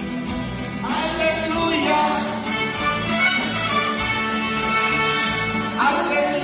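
Live mariachi band playing a ranchera: violins carrying the melody over a steady strummed rhythm of guitars and vihuela, with a guitarrón on the bass.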